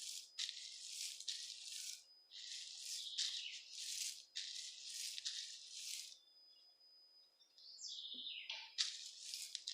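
Dry beans rattling and sliding in repeated short sweeps as they are sorted by hand, faint, with a pause of over a second partway through.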